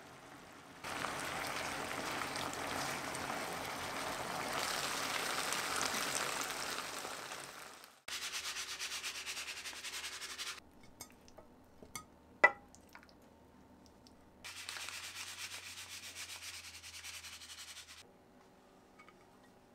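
Rubbing or scraping noise in three separate stretches that start and stop abruptly, with one sharp click in the quieter gap midway.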